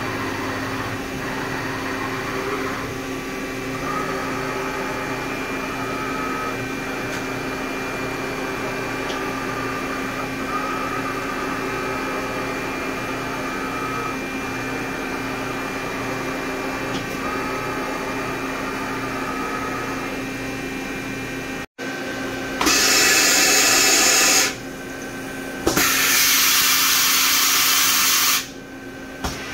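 Steady hum of running machine-shop equipment, with several steady tones and a faint higher tone that comes and goes every couple of seconds. After a short break come two loud bursts of air hiss, a few seconds each.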